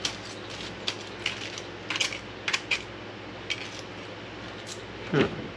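Hard, irregular clicks and clinks of a bowl of seasoned a'ama (black rock crab) pieces being mixed, shell knocking on shell and on the bowl, with a louder knock near the end.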